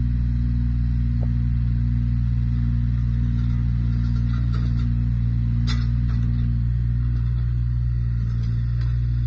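The diesel engine of a JCB 8008 micro excavator running steadily while the operator works the boom and arm and turns the machine. There is a short clank just past halfway, and the engine note shifts slightly near the end.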